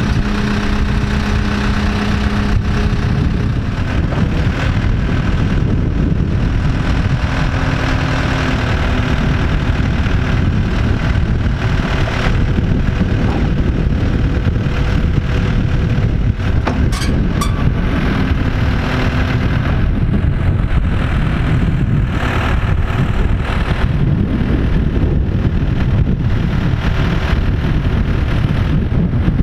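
Diesel engine of a Case backhoe loader running steadily under load as its bucket pushes a steel shipping container along on wooden rollers. A few sharp clicks come a little past the middle.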